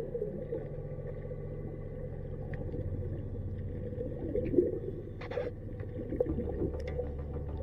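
Underwater sound at a boat's net-fouled propeller: a steady low hum with scattered clicks and crackles, a sharp knock about four and a half seconds in and a short hiss just after five seconds.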